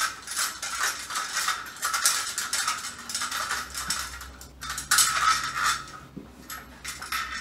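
Metal clinking and rattling as the spin bike's foot tube and its pre-fitted bolts are handled during assembly, in a quick run of knocks and clicks that comes loudest twice.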